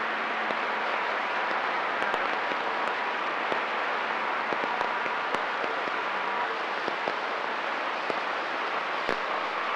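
CB radio receiver hissing with steady band static between transmissions, with scattered faint crackles.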